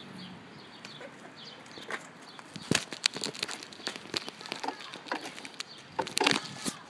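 Footsteps in slide sandals slapping and scuffing on concrete as a bicycle is walked alongside, with irregular sharp clicks and a few brief squeaks.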